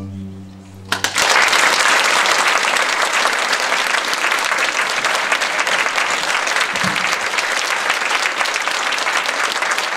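The orchestra's final low chord fades, and about a second in an audience starts applauding, a dense steady clapping that carries on.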